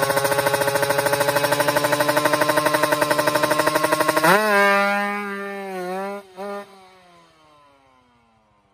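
Kawasaki Ninja drag bike engine held at high revs with a fast, even pulsing, then launching about four seconds in. Its pitch climbs, it breaks briefly at a gear change about two seconds later, and it fades away with falling pitch as the bike speeds off.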